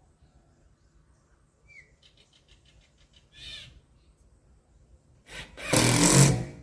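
Power drill running in one short, loud burst of about a second near the end, driving a screw into timber to hold the ceiling still.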